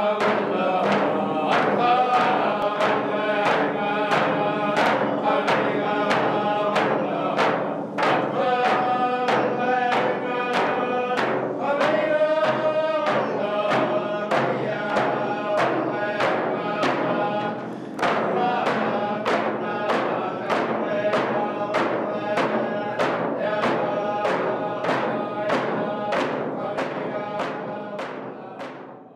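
Music: voices singing together over a steady drumbeat of about two strokes a second.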